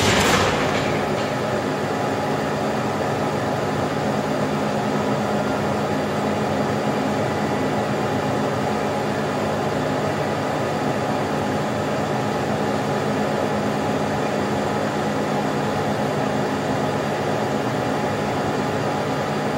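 Hydraulic guillotine shear's hydraulic pump and motor running steadily with a constant hum. A metallic ring from a knock just before fades out in the first second.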